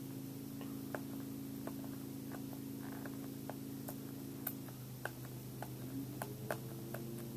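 Fingernail picking and peeling at a sticker on a plastic DVD case: scattered small clicks and taps, over a steady low electrical hum.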